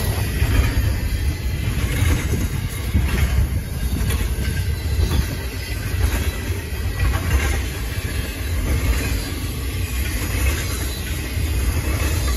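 Double-stack intermodal well cars rolling past: a steady low rumble of freight car wheels on rail, with occasional wheel clacks.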